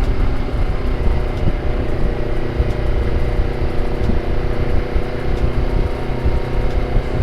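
Honda CBR250RR with an aftermarket KEA Speed exhaust, cruising at a steady engine speed under a low wind rumble.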